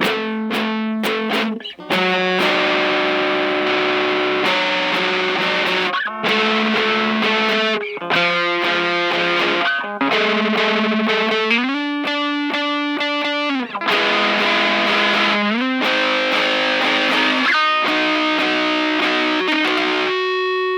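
Background music: a distorted electric guitar playing slow, held chords that change every couple of seconds.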